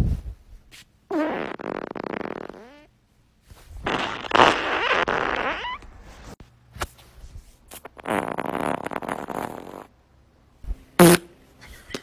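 Three long, drawn-out farts, each lasting about two seconds and wavering in pitch, followed by a short, sharp sound near the end.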